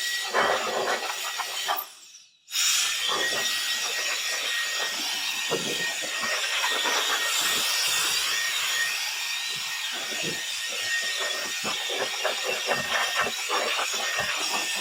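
Handheld air blower blasting air to clean dust out of the air filter housing: a loud, steady rushing hiss with a faint high whine, cut off briefly about two seconds in and then started again.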